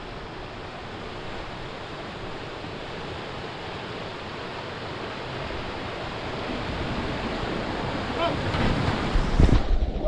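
River water rushing, a steady, even hiss that grows somewhat louder over the last few seconds.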